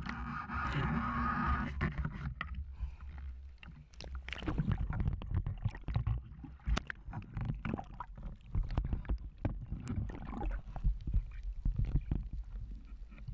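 Water splashing, sloshing and bubbling around a speargun-mounted camera in its waterproof housing, half at the surface and half underwater, with a muffled low rumble. A hiss of splashing fills the first couple of seconds, then many sharp clicks and knocks follow.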